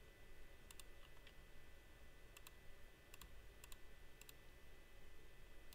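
Computer mouse clicks, each a quick press-and-release double tick, about five of them spread over a few seconds above a faint steady electrical hum.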